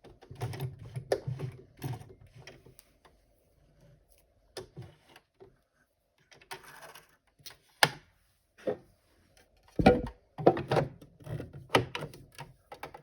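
Irregular clicks and knocks of small objects being handled, picked up and set down, with two short clattering runs: one in the first two seconds and one from about ten seconds in.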